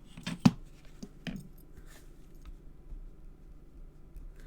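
Paper and card being handled on a craft desk: a few light taps and rustles, with one sharp tap about half a second in, then only faint handling.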